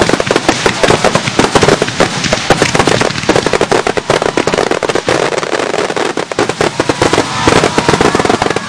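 Fireworks display in a rapid-fire barrage: bangs follow each other many times a second, so close together that they run into one continuous crackle.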